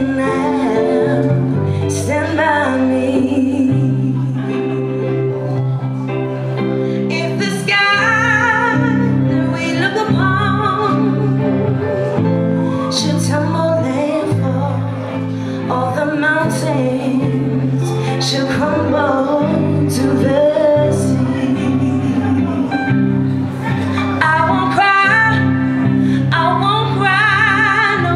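A woman singing lead vocals live with a band of drums and electric guitars, the sung melody over a steady low bass line and regular drum hits.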